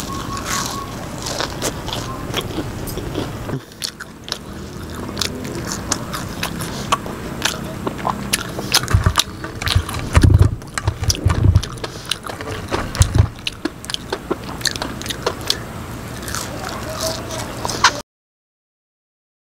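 Crisp crunching and chewing of deep-fried enoki mushrooms being bitten, with many sharp irregular crackles and a few heavier chewing thuds in the middle. The sound cuts to dead silence near the end.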